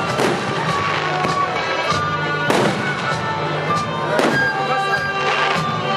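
Aerial fireworks shells bursting, a sharp bang roughly every second, over steady music played along with the display.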